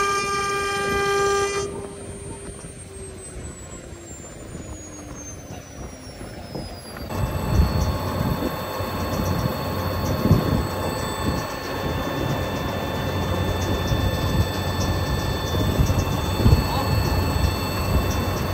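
CNC router spindle running with a steady high whine, then cut off about a second and a half in and winding down, its pitch falling slowly. About seven seconds in the sound changes suddenly to the spindle running at full speed again while the bit cuts into a wooden log on the rotary axis, with irregular knocks and rasps from the cutting.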